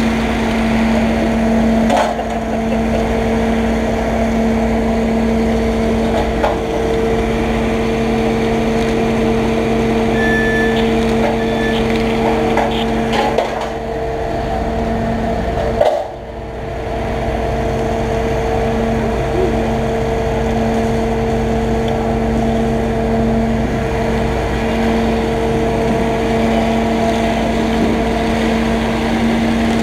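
Fire truck's engine running at a steady speed, a constant even drone, with a few short knocks about two seconds in and again around the middle, where the sound briefly drops.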